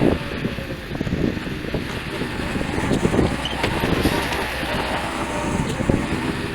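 Tractor engine running under work, with irregular clanking and rattling.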